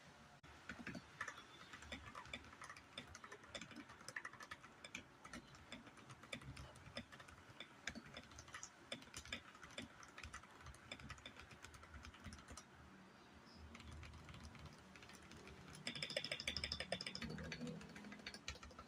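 Typing on an Akko 5075S mechanical keyboard with Jelly Purple switches: a steady run of quick key clacks, thinning out about two-thirds of the way through, then a fast dense burst of keystrokes near the end.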